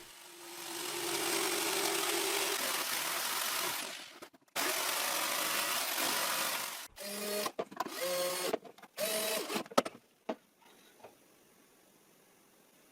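A small power tool running in several bursts: a long run of about four seconds with a steady hum, a second run, then a few short spurts before it stops about ten seconds in.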